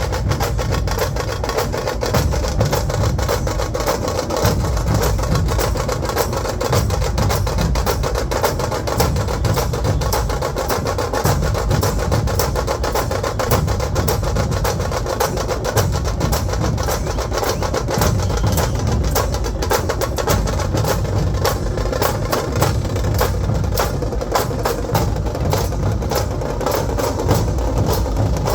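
Dhol-tasha pathak drumming: large barrel dhols beating low under a rapid, unbroken roll of sharp strikes from the stick-played tasha drums, in a dense, driving rhythm.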